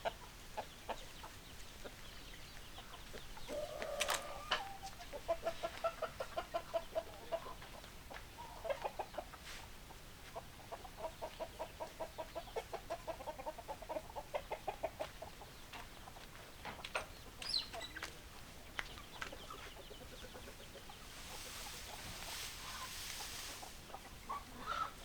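Domestic hens clucking in long runs of quick, even clucks, with scattered single clucks between, and a few seconds of hiss near the end.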